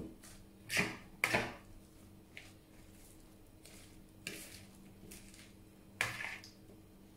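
A metal fork tossing lettuce salad in a plastic bowl: irregular scrapes and clinks of the fork against the bowl as the leaves are turned. The loudest strokes come about a second in and at about six seconds.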